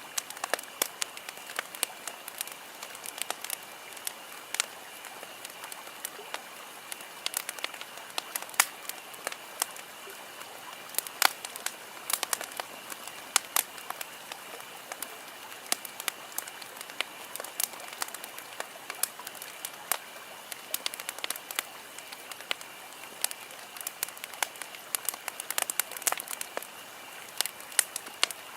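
Campfire burning and crackling: irregular sharp pops and snaps over a steady soft hiss.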